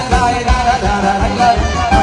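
Live wedding band music with singing over a fast, steady beat.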